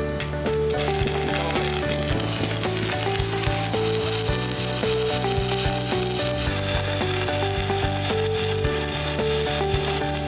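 Stick-welding arc from a Hukan HK 250 MOSFET inverter welder, crackling and sizzling steadily without a break, over background music.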